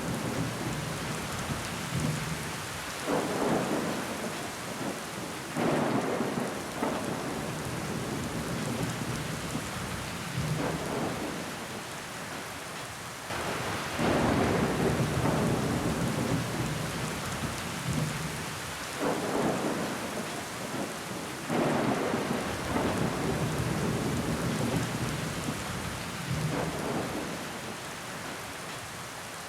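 Steady rain falling against a window pane, rising every few seconds into sudden louder swells of heavier rain before easing back.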